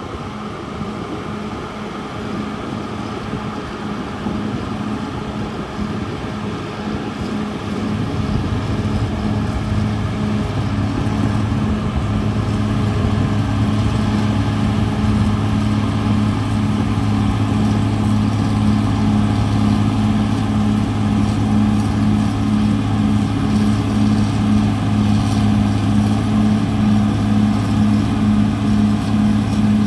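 Caterpillar D6R XL bulldozer's diesel engine running with a steady low drone, growing louder from about eight seconds in and then holding steady.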